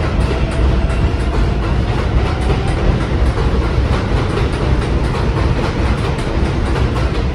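New York City Subway 7 train of R188 cars running through an elevated station without stopping: a steady rumble of wheels on the rails, with a quick, uneven stream of clicks as the wheels cross rail joints.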